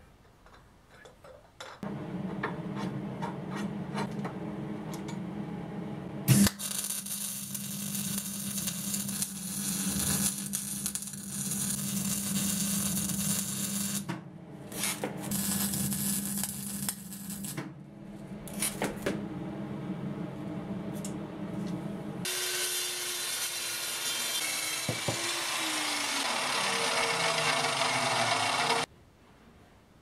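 MIG welding: the arc crackling and hissing in several runs of a few seconds each, over a steady low hum. In the last stretch a different harsh noise has a tone sliding down in pitch, and it stops suddenly near the end.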